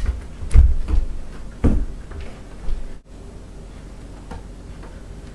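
About five dull thumps and knocks in quick succession, the loudest about half a second in, from a Bop It toy being tossed, caught and hit by hand. After that only a low background hum.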